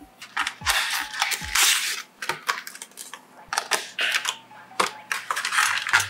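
RAM kit's cardboard box and plastic packaging handled during unboxing: the box lid sliding open, rustling and scraping, with sharp plastic clicks as the memory sticks are taken out.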